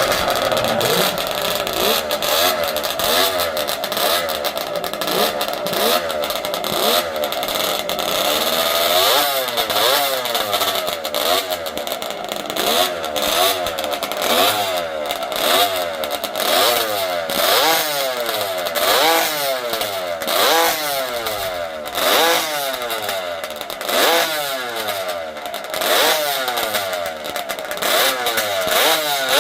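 Classic racing motorcycle engine running and being revved. It starts at a fairly steady note, then from about nine seconds in the throttle is blipped over and over, the revs rising and falling about once a second.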